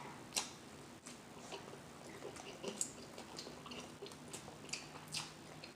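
Close-miked mouth sounds of someone chewing a bite of sushi dipped in sauce: about a dozen soft wet smacks and clicks scattered through.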